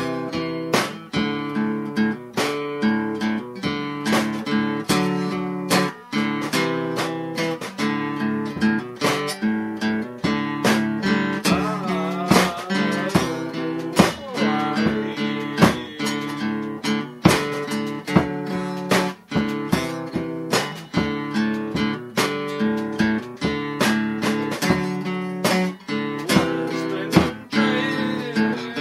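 Music: a guitar strummed in a steady rhythm.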